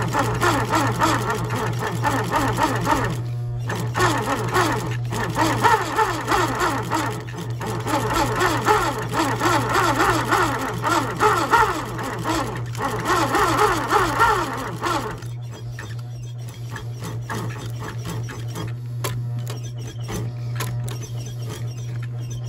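Industrial sewing machine stitching through a leather jacket collar in fast runs, with short stops between them. After about fifteen seconds the stitching stops, leaving the motor's steady hum and a few light clicks.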